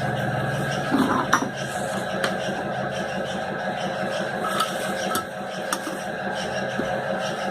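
A few sharp metallic clicks and clinks of tools and parts being handled while a sewing machine motor is taken apart to reach its bearings, with a small cluster about a second in, over a steady background hum.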